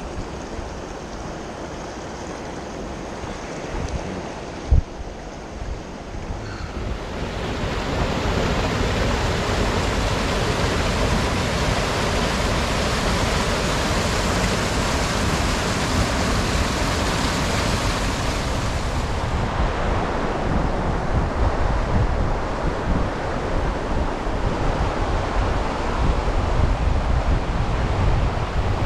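Rushing river water with wind buffeting the microphone. The water grows louder about seven seconds in, and there is a single knock about five seconds in.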